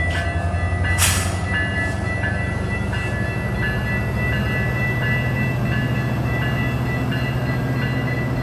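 Metra commuter train at the platform, its diesel locomotive running with a steady low rumble, while a bell rings steadily about twice a second. A short hiss cuts in about a second in.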